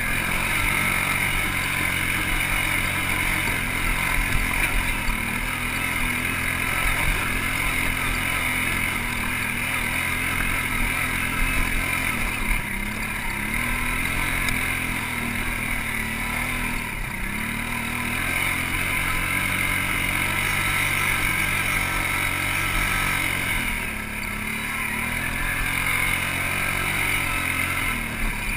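ATV engine running under load as the quad climbs a rocky trail, its revs dipping and picking back up several times.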